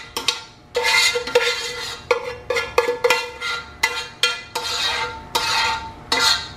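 Metal spoon knocking and scraping against a cooking pot as cooked rice is scraped out into a glass bowl, about two strokes a second, each with a short ring.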